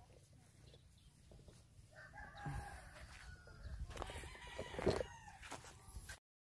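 A rooster crowing about two seconds in, over a low rumble, with a louder sound near five seconds; the audio cuts off abruptly just before the end.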